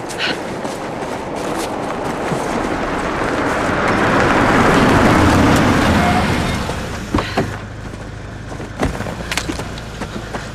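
A car approaches, its engine and tyre noise rising to a peak about five seconds in, then dropping away as it slows and stops. After that the engine idles with a low hum, and several sharp clicks and knocks come over it.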